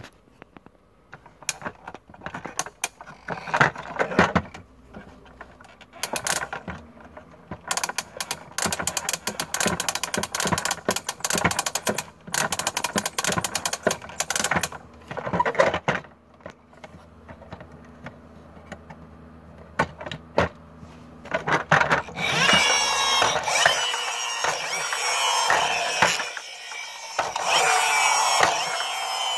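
Plastic toy concrete mixer truck: its drum turned by hand at the flywheel wheel, giving bursts of fast ratchet clicking. About three-quarters of the way through a louder, continuous whirring starts as the truck is pushed along on its friction-motor wheels.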